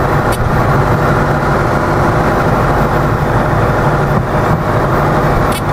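Light aircraft's engine and propeller running steadily, heard from inside the cabin during the landing roll, mixed with airframe and rolling noise.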